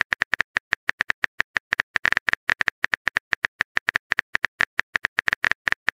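Phone keyboard typing clicks: a quick, even run of short taps, about seven a second, as a text message is typed.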